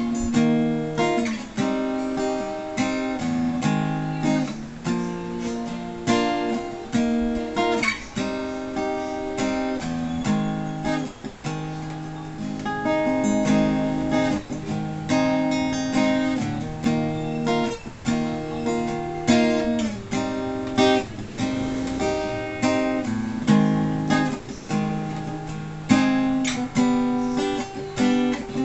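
Sqoe Cranberry 41-inch steel-string acoustic guitar being strummed, chord after chord with ringing notes between the strokes, as a sound test.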